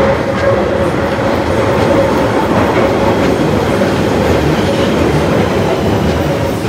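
London Underground Central line train running in alongside a sharply curved platform: a loud, steady rumble of wheels on rail with a steady high whine held over it.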